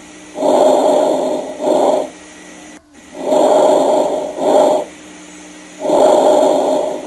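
Normal vesicular breath sounds heard through a stethoscope: a soft rushing noise through each breath in, then a shorter one at the start of the breath out. About three breaths, evenly spaced.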